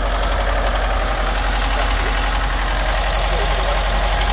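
Volkswagen T25 van's water-cooled petrol flat-four engine idling steadily, heard up close at the open engine hatch: a constant low hum with a rapid, even firing pulse.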